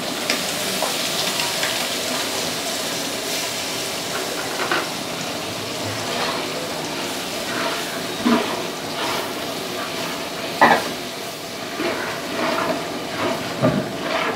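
Tomato purée tipped into hot oil and onion masala in a large aluminium pot, setting off a steady sizzle as it fries. A metal ladle stirs it, knocking against the pot a few times.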